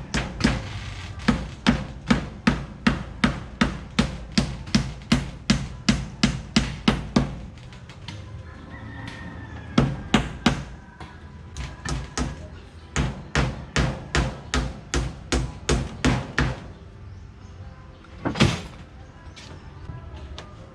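A hand tool striking wood in quick, even blows, about two or three a second, in several runs broken by pauses, with a single strike near the end.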